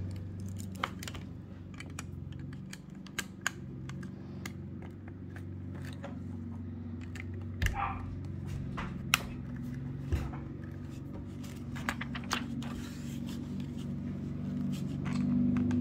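Plastic Lego pieces clicking as they are handled and pressed onto a model, with a few scattered sharp clicks over a low steady hum.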